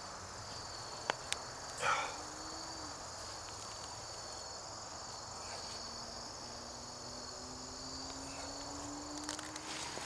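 Steady high-pitched chorus of field insects chirring in the garden, with a sharp click about a second in and a short rustle near two seconds from hands working loose soil.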